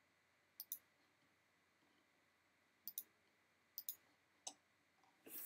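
Computer mouse clicking against near silence: three quick paired clicks, press and release, then a single click, and a short soft noise just before the end.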